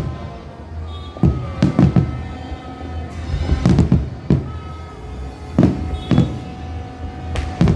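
Fireworks going off in a string of sharp bangs, several in quick pairs, with music playing along underneath.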